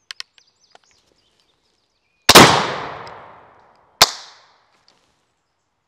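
A few light clicks, then a black-powder percussion muzzleloading shotgun fires one barrel: a loud shot that echoes away over about a second and a half. Under two seconds later there is a sharper, shorter crack as the percussion cap on the other barrel snaps without setting off the charge, a misfire the shooter blames on debris on the nipple.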